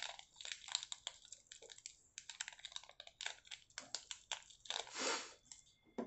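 Small clear plastic parts bag crinkling and rustling in the fingers as it is opened to take out the seals, in quick irregular crackles with a longer rustle about five seconds in.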